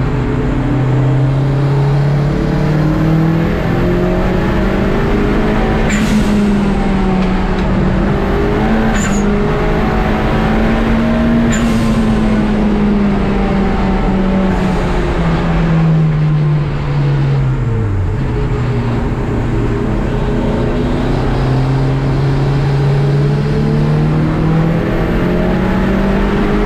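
A race car's engine heard from inside its stripped cabin, pulling hard under full throttle with its note climbing. About two-thirds of the way through it falls away sharply as the driver lifts off, then rises again as the car accelerates once more. Three short sharp clicks come through over the engine early on.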